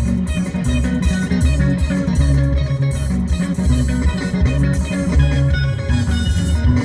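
Music with guitar over a prominent, moving bass line and a steady beat.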